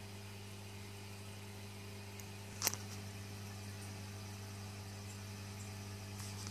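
Steady low electrical hum of an aquarium's filter pump running, under a faint hiss, with one sharp click about two and a half seconds in.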